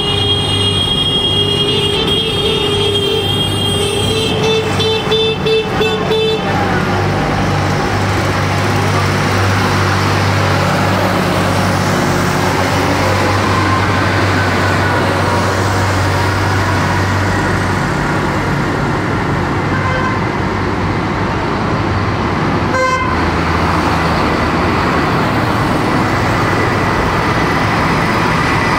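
Tractor engines running as a line of tractors drives past. Horns toot on and off during the first six seconds, and one short toot sounds a little past the middle.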